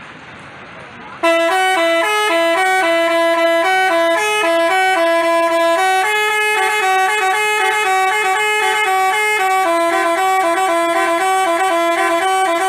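Telolet Basuri multi-tone bus horn playing a quick melody of short stepping notes. It starts about a second in, after a brief quieter gap.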